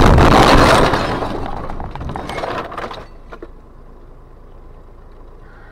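Vehicle collision picked up by a dashcam: a loud crash with debris clattering, dying away over about three seconds into scattered rattles, then a quieter steady low rumble.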